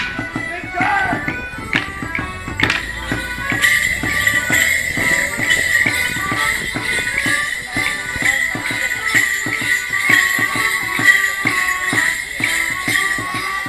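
A morris band playing a lively folk dance tune over a steady drum beat, joined about three and a half seconds in by the jingling of the dancers' leg bells as they dance.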